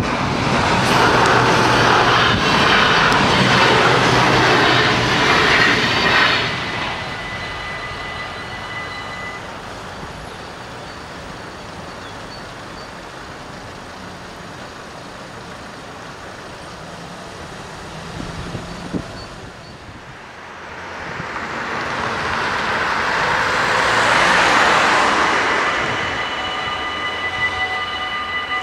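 A train passes over an automatic half-barrier level crossing, its rumble cutting off about six seconds in, while the crossing's electronic warning bells ring steadily and then stop a few seconds later as the barriers lift. Later a road vehicle passes, and near the end the warning bells start ringing again.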